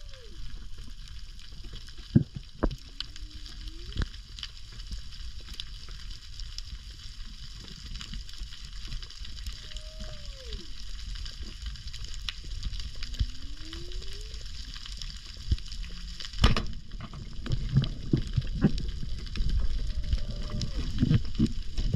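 Underwater reef sound: a constant crackling hiss of snapping shrimp, with a sharp crack of a pole spear shot striking about 16 seconds in, followed by low rumbling movement. Smooth moaning tones recur about every ten seconds, one falling from high to low and one rising.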